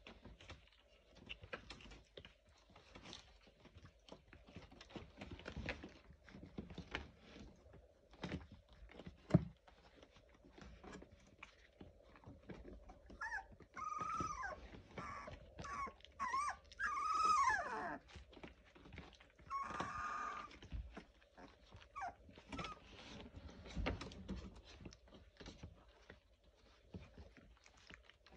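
Eighteen-day-old Labrador retriever puppies scuffling and pawing on a puppy pad, with small clicks and rustles throughout. About halfway through, a puppy whines several times in high calls that bend up and down, with another short whine a little later.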